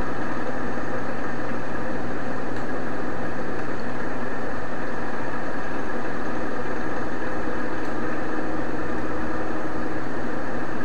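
Steady background hiss with a low, even hum underneath, unchanging throughout with no clicks or other events.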